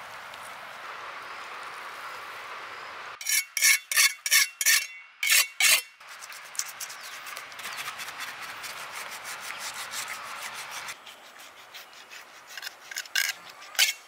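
A knife scraping the large scales off a parrotfish in rasping strokes. A few seconds in comes a run of about nine quick, loud strokes, and more strokes come near the end.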